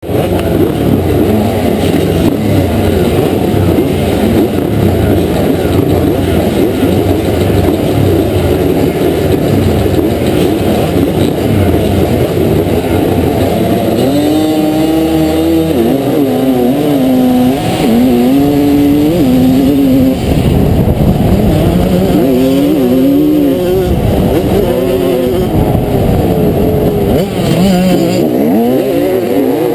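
Two-stroke motocross bikes revving hard at the starting gate, among them a 1989 Honda CR250R single-cylinder two-stroke. About halfway through, one engine's note comes clear, climbing in pitch and dropping back again and again as the bike accelerates and shifts up through the gears.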